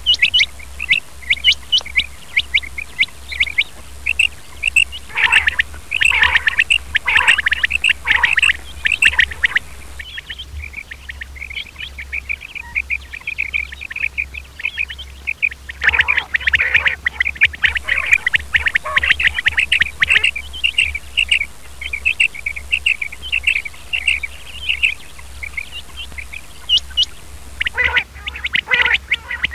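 Male quail (batair) calling: a dense run of quick, repeated high chirping notes, with louder bursts of calls three times.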